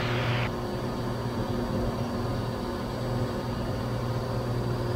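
Cessna 182's six-cylinder engine and propeller droning steadily in flight, heard inside the cabin. A hiss of radio static cuts off about half a second in.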